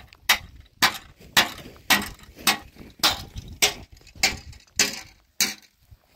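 Footsteps crunching on gravel and dry stony ground at a walking pace, about two steps a second, stopping shortly before the end.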